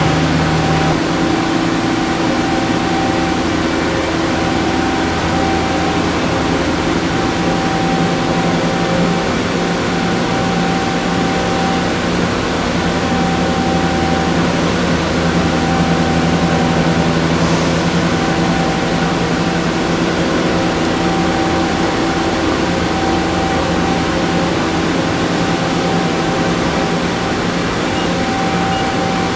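Makino A51NX CNC horizontal machining center running: a loud, steady mechanical hum over a constant hiss, with a higher whine that drops in and out every few seconds.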